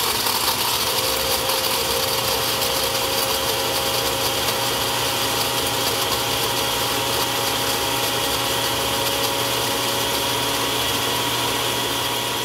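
Countertop blender grinding small pieces of chaga mushroom into powder: the motor runs steadily with a loud, even grinding noise and a steady whine that rises a little in the first second as it spins up.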